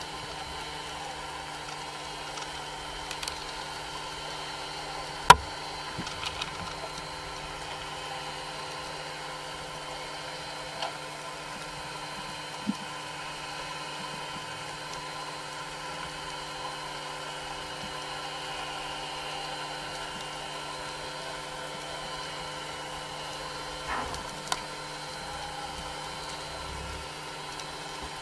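Underwater recording: a steady hiss with a faint, constant hum, broken by a few sharp clicks, the loudest about five seconds in and two more close together near the end.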